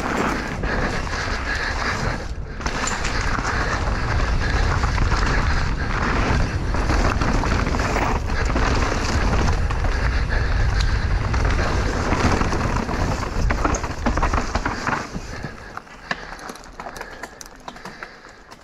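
Mountain bike ridden down a rough enduro trail: wind rushing over the microphone, tyres on dirt and rock, and the bike rattling and knocking over bumps. The noise eases off about three seconds from the end.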